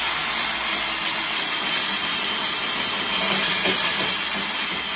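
Ryobi 18-volt cordless band saw running and cutting through a shower door head rail: a steady sawing noise with a faint high whine.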